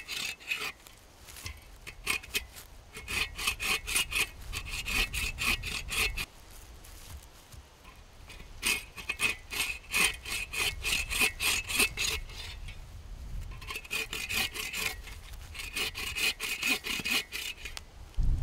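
Hand saw cutting across a barked log: quick back-and-forth rasping strokes in runs, with short pauses about six and thirteen seconds in.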